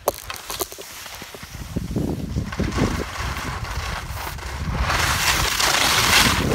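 Wind buffeting the microphone, with a rush of noise that grows louder about five seconds in.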